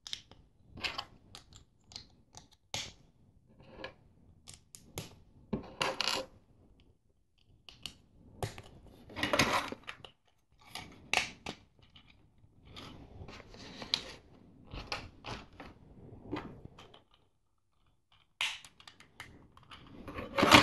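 Hard plastic LEGO plates, bricks and gears handled and pressed together: irregular clicks, clacks and short scrapes, with brief pauses between them.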